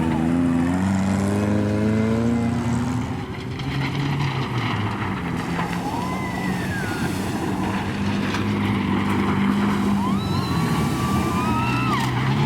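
Off-road jeep engine revving, its pitch climbing over the first couple of seconds, then running steadily under load as it drives through river water with a rushing splash. Passengers whoop around the middle and again near the end.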